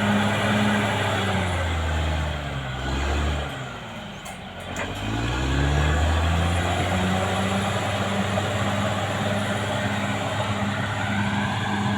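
Caterpillar D6R XL bulldozer's diesel engine running hard. About two seconds in its revs fall away and it goes quieter for a couple of seconds, then the revs climb back up and hold steady.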